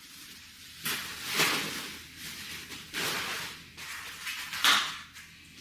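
Plastic packaging rustling and crinkling in irregular bursts as parts are handled, with the loudest crinkle near the end.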